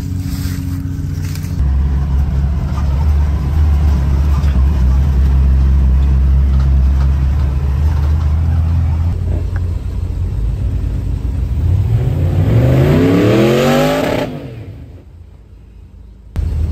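Off-road vehicle engines: a steady low engine drone while driving a dirt trail, then an engine revving up with rising pitch about twelve seconds in and dropping away. After a short quieter stretch, engine noise comes back abruptly near the end.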